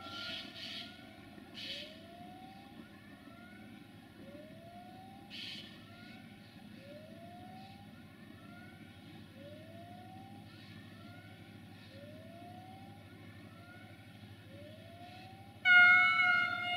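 A faint low rumble with a soft rising tone repeating about every second and a half. Near the end, a train horn sounds loudly, held for about a second, from the approaching passenger train's locomotive.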